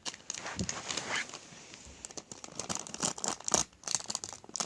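A toy mystery-pack wrapper crinkling and rustling as it is cut open and handled, with a string of short clicks and crackles.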